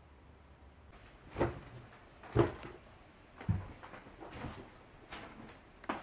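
Footsteps on a hard floor, about one step a second, each a short thud, the first two loudest.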